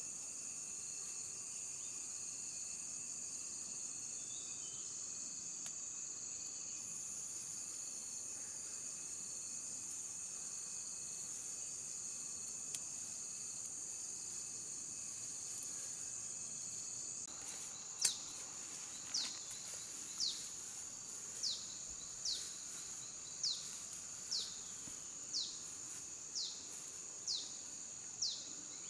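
Steady, high-pitched chorus of insects in the forest. In the last third a short, high call that falls in pitch repeats about once a second.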